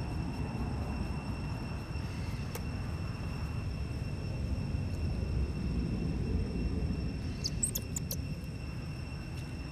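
Outdoor field ambience: a steady low rumble with a thin, steady high-pitched tone over it, and a quick cluster of high squeaky chirps about seven and a half seconds in.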